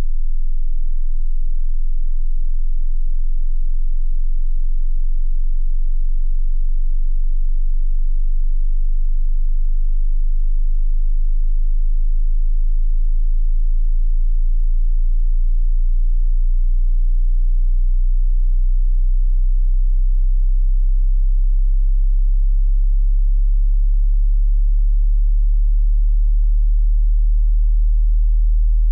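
Hearing-test sine tone at the very bottom of the audible range, a steady deep hum slowly rising in pitch.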